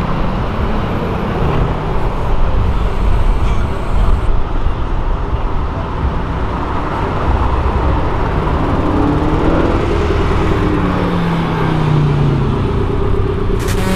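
Sports cars driving past on a street, a Porsche Boxster and then an Audi RS5 coupé, over steady traffic noise. An engine note climbs and falls about two-thirds of the way through as one car accelerates.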